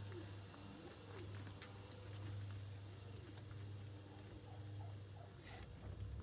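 Pigeons cooing softly and repeatedly over a steady low hum, with a few faint clicks and a short rustle about five and a half seconds in.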